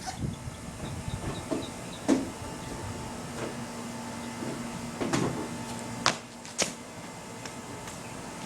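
A few scattered thumps and knocks, the loudest about two, five and six seconds in, from a person performing a kong vault: feet striking the ground and hands planting on a truck. A steady low hum runs underneath.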